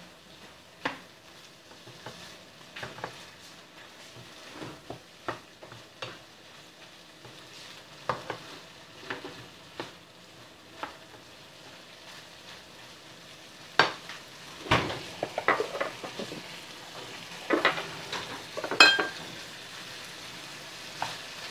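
A spatula scrapes and knocks in a frying pan as a shrimp, hotdog and vegetable stir-fry is stirred, over a steady sizzle. The strokes are irregular and become thicker and louder in the second half, with a sharp ringing clink near the end.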